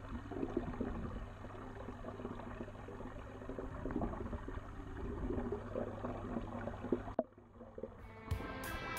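Steady, muffled water noise with a constant low hum, heard through a camera submerged in a turtle pond. About seven seconds in it cuts off abruptly, and plucked electric guitar music starts near the end.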